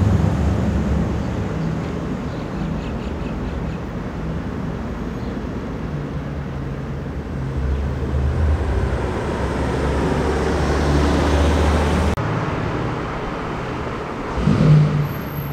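Car engines and tyres rumbling steadily as cars drive slowly through a concrete underpass. The rumble grows louder as a classic saloon draws near, then cuts off abruptly and shifts to another approaching car, with a short louder noise near the end.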